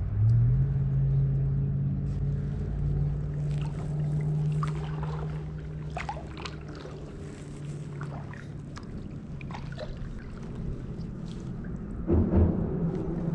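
Kayak paddle strokes: water dripping and splashing off the paddle blades in short scattered splashes, with a louder splash or knock near the end. Under it runs a low, steady hum that rises in pitch right at the start and slowly fades.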